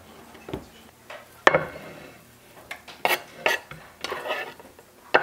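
Kitchen knife clacking and scraping on a wooden cutting board, a string of separate sharp knocks, as diced bacon is scraped off the board into a cast-iron skillet.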